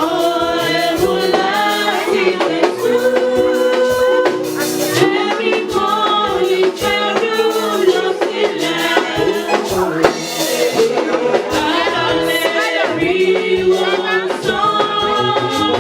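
A congregation singing a hymn together, with the steady shaking and striking of a tambourine or similar hand percussion keeping time.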